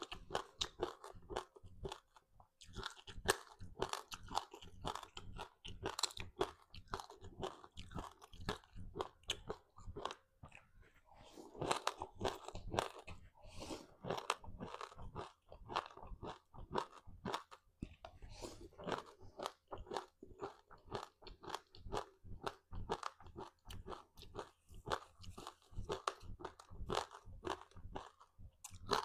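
A person chewing a crispy seaweed-wrapped rice snack: rapid, continuous crunching with brief pauses between bites.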